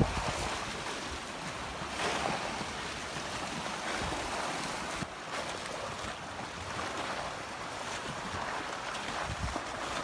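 Windstorm: strong gusting wind with lake waves breaking, swelling every second or two. Wind buffets the microphone in low rumbles.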